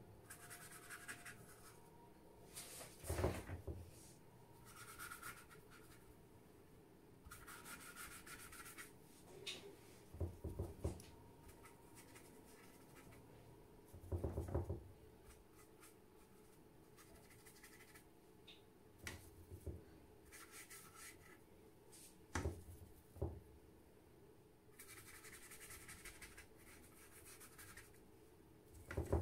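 Paintbrush stroking and dabbing across watercolour paper in several short scratchy passes, each lasting a second or two. A few brief soft knocks come between the strokes.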